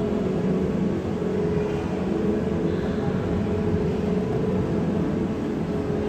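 Steady low rumble with a faint hum running through it: the background noise of a large aquarium viewing hall.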